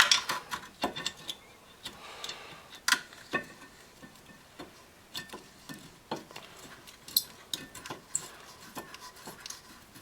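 Irregular metallic clicks and clinks of steel bolts and a wrench being handled while the caliper bracket bolts are started by hand, with several quick clicks at the start and scattered ones after.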